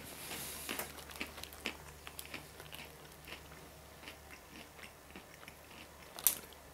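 Faint, irregular crunching of coated peanuts being chewed, with one sharper click about six seconds in.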